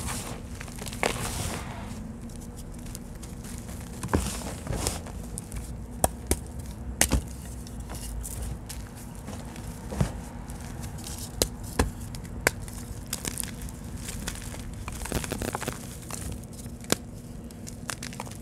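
Hands crushing and crumbling reformed blocks of dry red powder: continuous gritty crunching, with sharp snaps now and then as chunks break apart.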